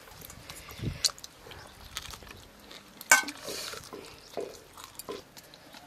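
Eating by hand from stainless-steel bowls: fingers mixing rice and curry, scraping and tapping on the metal, with scattered sharp clicks, the loudest about three seconds in.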